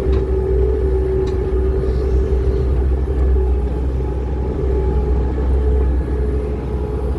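Skid steer's engine running steadily with a constant low rumble and a steady hum above it.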